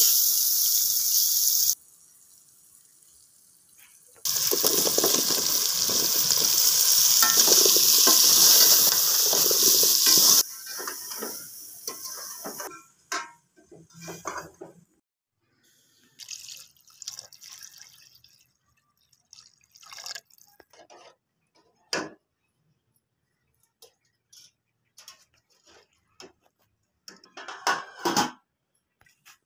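Spiced masala sizzling loudly in a hot metal pot as it is stirred, a steady hiss in two stretches that start and stop sharply, the second running about six seconds. After that come scattered light clinks and knocks of a steel ladle against the pot.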